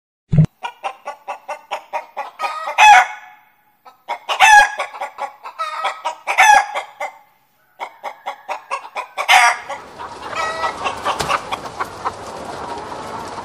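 Hen clucking and cackling: runs of quick short clucks, each ending in a louder drawn-out squawk, four times over. From about ten seconds a steady hissing noise comes in under fainter clucks.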